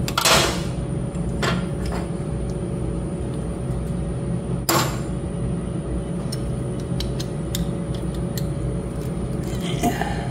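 Steady low machine hum throughout, with two short rustles of cable handling and a scatter of small clicks from a hand tool working on inverter wiring.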